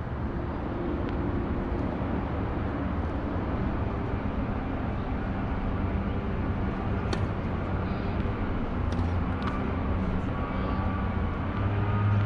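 Steady low engine rumble with faint held tones, growing a little louder near the end, and a few faint sharp clicks, the clearest about seven seconds in.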